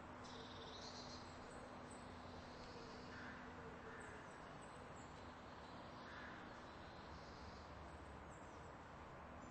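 Near silence: a faint steady hum and hiss, with a few faint short calls scattered through it.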